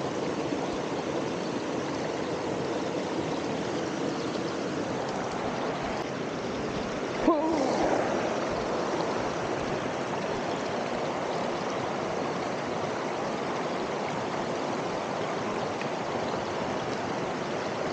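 Waterfall and stream water rushing steadily, with a brief knock about seven seconds in.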